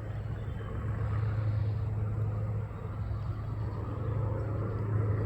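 Steady low rumble with a constant low hum.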